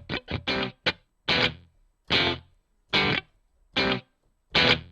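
Sampled Stratocaster electric guitar notes from a software sample library. A quick run of short notes opens, then single notes are struck evenly, a little more than once a second, each dying away quickly.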